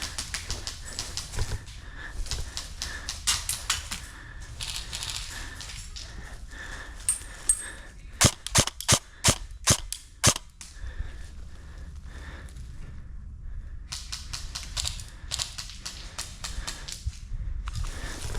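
Airsoft guns firing: quick runs of fainter clicking shots, and about two seconds of seven loud, sharp single shots in a row a little under three a second near the middle.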